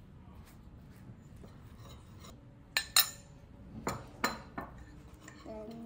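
A ceramic mixing bowl and utensil clinking and knocking while raw chicken is tossed in flour: about five sharp clinks in the second half, the loudest about three seconds in.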